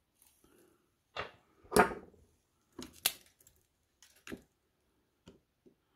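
Handling noise during soldering: about eight light knocks and clicks at irregular intervals as the soldering iron and solder wire are worked against a battery terminal tab and its plastic case, the loudest about two seconds in.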